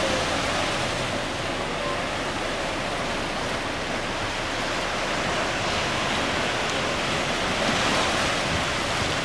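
Steady rush of wind on the microphone mixed with waves washing on the shore.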